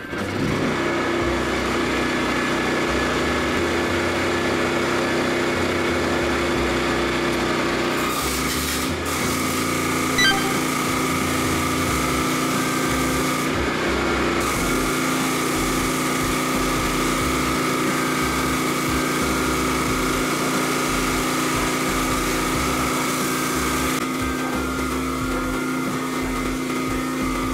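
Pressure washer kicks in and runs steadily, its water jet hissing as it blasts caked cement out of a steel mortar mixer drum.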